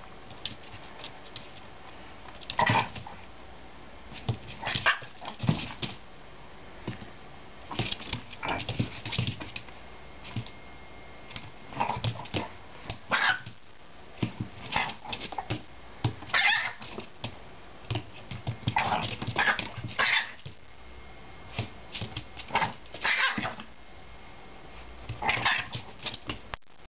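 A Chihuahua and a Jack Russell Terrier puppy barking and yapping in short, sharp outbursts scattered irregularly: the Chihuahua telling off the puppy that keeps pestering it.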